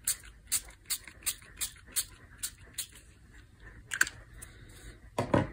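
A pink Distress Oxide spray bottle being pumped quickly, giving short hissing squirts about three times a second, which stop about three seconds in. A single click follows about a second later.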